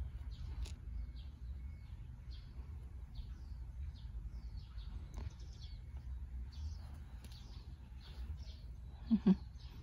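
Small birds chirping over and over, short high calls, over a low steady rumble. Two short, dull low thumps come close together near the end.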